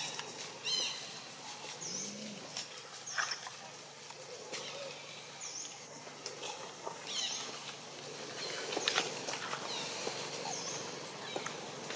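Repeated short, high-pitched animal chirps, each falling in pitch, coming every second or two over a steady outdoor hiss, with one brief low call about two seconds in.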